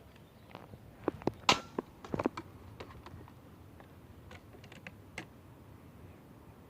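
A series of sharp mechanical clicks and knocks at irregular intervals, the loudest about a second and a half in with a brief ring, then a quick cluster and a few fainter ticks.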